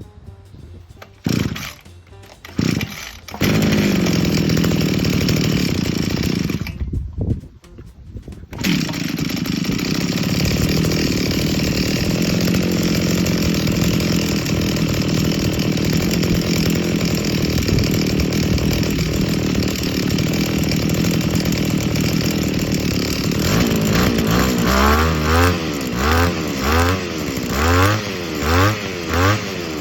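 Brush cutter's small two-stroke engine being pull-started: a couple of short bursts, then it catches about three seconds in, drops out briefly around seven seconds and starts again, running steadily on its newly replaced primer bulb. Near the end it is revved up and down in about half a dozen quick blips.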